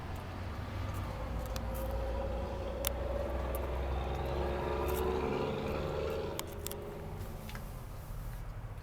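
A motor vehicle's engine and tyres swelling and then fading over several seconds, like a vehicle driving past, with a few light clicks.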